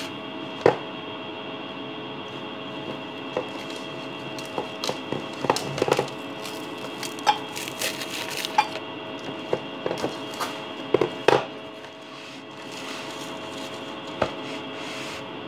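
Cling film crinkling and the plastic tub clicking and tapping as the film is stretched and pressed over the tub's rim, in scattered short sounds with a sharp tap about a second in. A steady hum runs underneath.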